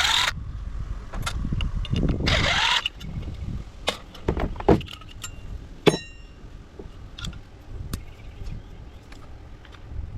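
Clatter of coffee-maker parts being handled while they are taken apart and sorted for scrap. There are scattered clicks and knocks, two short scraping noises in the first three seconds, and a small metal part rings briefly about six seconds in.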